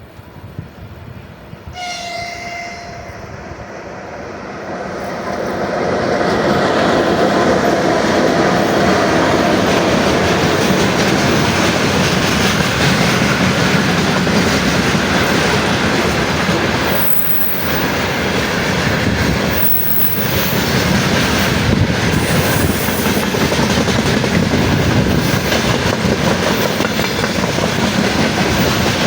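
A train sounds one short horn blast about two seconds in. Then it comes up loud and passes through, a steady rumble with wheel clatter on the rails that lasts to the end.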